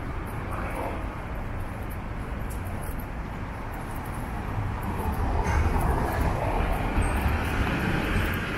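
City street traffic: a steady rumble of motor vehicles, with engine noise from a vehicle growing louder about halfway through.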